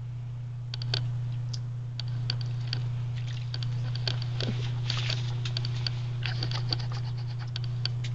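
Baby Quaker parrot splashing as it bathes in shallow water: a quick, irregular patter of small splashes and droplet clicks starting about a second in, over a steady low hum.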